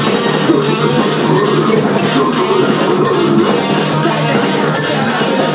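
Live band playing loud rock music with electric guitar and drum kit.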